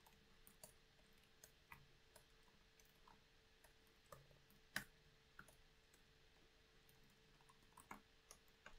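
Computer keyboard keys being typed, faint, irregular clicks with gaps between them and one louder keystroke about five seconds in.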